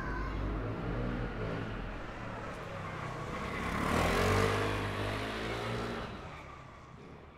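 A car passing by on a street: the engine and tyre noise swells to its loudest about four seconds in and then dies away over a low traffic rumble. Near the end the whole street sound fades down.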